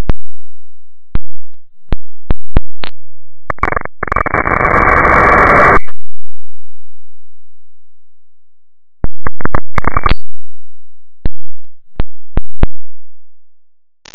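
Angle grinder cutting thin steel, heard only in broken fragments: a series of sharp clicks and two bursts of harsh, muffled grinding noise, about three and nine seconds in, with dead silence between them.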